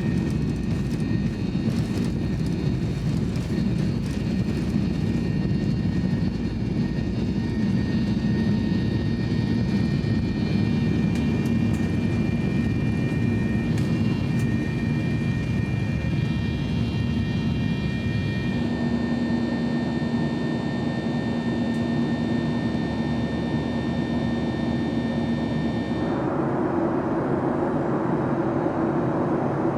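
Boeing 737-800 jet engines heard from inside the cabin: a steady loud rush with high whining tones, which shift abruptly twice, about two-thirds of the way through and near the end.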